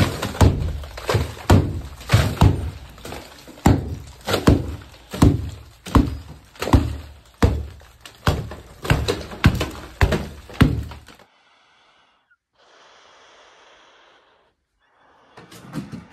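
Hatchet blows knocking old plaster off wooden lath, about two strikes a second, with plaster cracking and breaking away; the plaster barely holds to the lath. The blows stop suddenly about eleven seconds in, leaving a short faint hiss, and start again just before the end.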